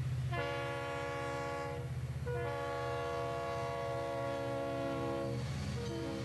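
Diesel train horn sounding three long, steady blasts, each a chord of several notes, the third starting near the end, over the continuous low rumble of the running train.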